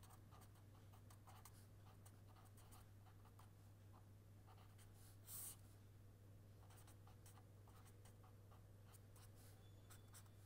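Faint scratching and squeaking of a felt-tip marker writing on paper, in many short strokes, with one longer, louder stroke about five seconds in. A low steady hum runs underneath.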